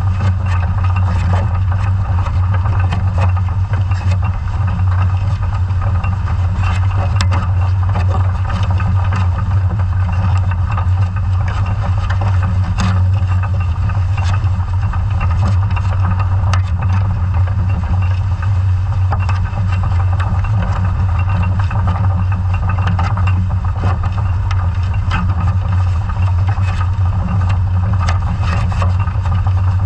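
Scallop survey dredge being towed along a sandy seabed, heard through an underwater camera housing: a steady low hum with a constant hiss and scattered light ticks.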